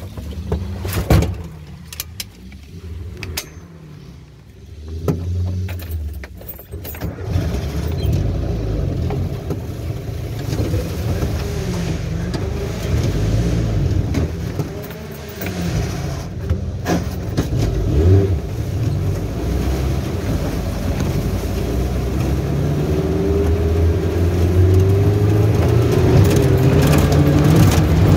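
Suzuki Jimny off-road 4x4 engine running under load, heard from inside the cab, with sharp knocks and rattles from the body over rough ground during the first several seconds. The engine grows steadily louder and its revs rise near the end as it starts up a steep dirt climb.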